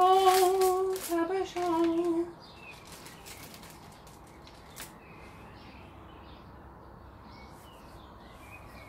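A woman humming a few held notes for about two seconds, with some brief rustling. Then faint bird chirps from outside.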